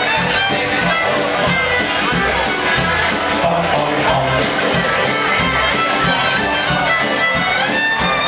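Live honky-tonk country band playing, a steady bass beat under held melody notes.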